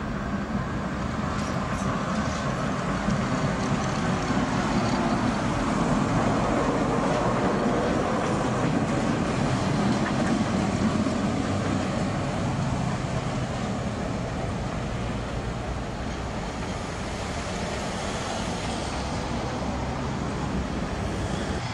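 Tram running on street track and passing close by. Its running noise builds to a peak about halfway through, then fades as it moves away.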